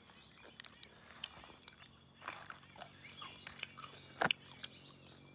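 A person chewing grilled bird meat close to the microphone, with scattered sharp crunches; the loudest crunch comes about four seconds in.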